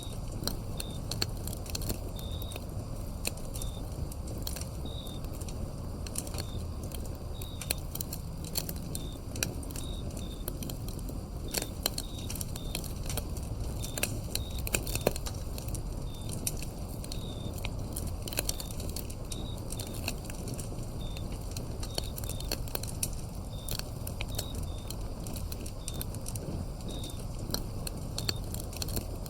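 Wood fire crackling and popping over a low, steady rumble of burning, with crickets giving short high chirps every second or so.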